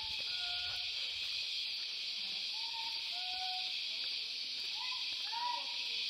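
Steady, high-pitched drone of a cicada chorus. Short hooting whistle calls come through it a few times: near the start, around the middle and near the end.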